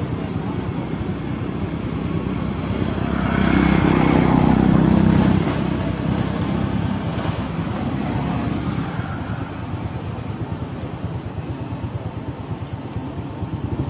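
A motor vehicle passing, its sound rising and fading about three to five seconds in, over a steady outdoor background hum.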